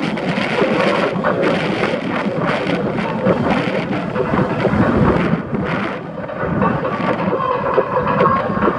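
Heavy wind buffeting on a camera mounted on the outside of a moving car, mixed with the car's road noise.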